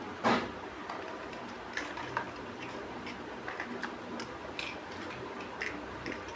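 Plastic Lego bricks being handled and snapped together: irregular light clicks and taps, the loudest just after the start.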